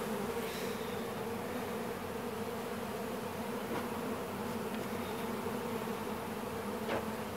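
Swarm of Carniolan honeybees buzzing around their hive entrance, a steady hum of many wings holding one pitch. It is a newly installed package of bees settling into the hive.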